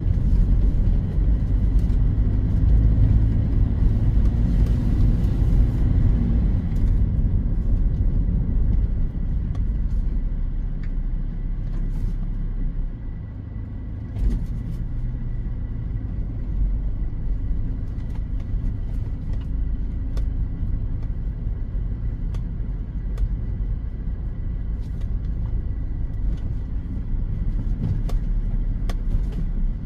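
Toyota Innova on the move: a steady low rumble of engine and road, heavier for the first several seconds and easing about halfway, with a brief knock soon after. A thin, steady high whine runs over it, and scattered sharp clicks and ticks come through, mostly in the second half.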